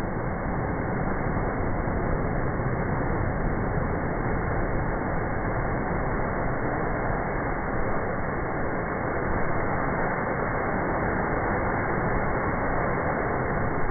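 Surf crashing into a rocky inlet and bursting up as spray, heard as a steady, even rushing noise with no distinct breaks.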